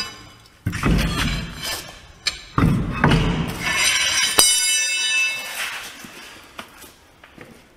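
Heavy steel truck wheel being handled off its hub: two heavy thudding, scraping stretches of steel and rubber, then a high metallic screech with a sharp click a little after the middle.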